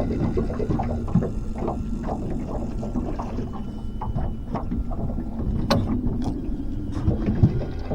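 Fishing boat on a fast-running river, water slapping and gurgling against the hull over a steady low rumble, with scattered small knocks and a sharp click about six seconds in.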